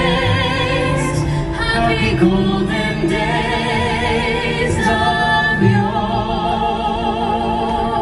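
Women singing live into handheld microphones over accompanying music, with wavering held notes, amplified through the microphones.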